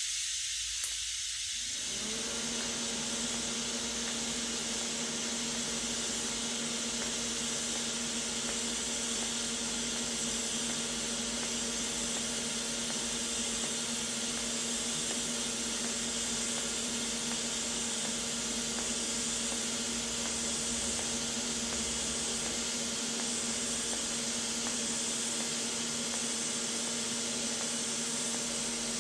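TIG welding arc on stainless steel making a steady hiss. A short click comes about a second in, and a steady low hum joins the hiss about two seconds in and holds throughout.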